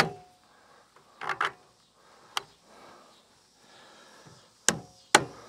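About six sharp knocks and clacks, spaced irregularly: PVC guide-pole pipe and its caps being handled and set down. The loudest come at the very start and near the end.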